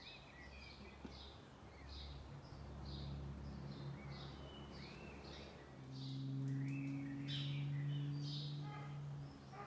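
Birds chirping over and over, about twice a second, with a few arched whistled notes among them. A low steady hum runs underneath and grows louder from about six seconds in.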